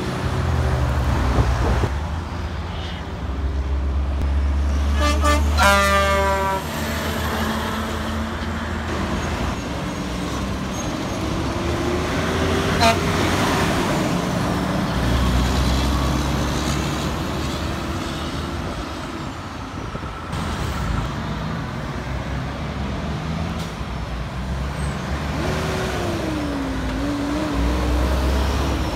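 Diesel engines of heavy trucks passing on a busy road, among them a concrete pump truck and Kenworth and Peterbilt multi-axle dump trucks, with a low engine rumble that swells three times as trucks go by. About five seconds in comes a short toot that falls steeply in pitch.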